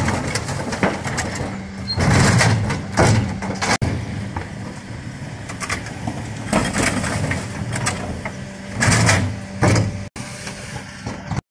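Mercedes Econic refuse truck running with a steady hum of engine and hydraulics while its Geesinknorba Combi-split lifters raise and tip wheelie bins into the hopper. Loud clattering and banging of bins and lifter comes about two seconds in, again near seven seconds and near nine seconds.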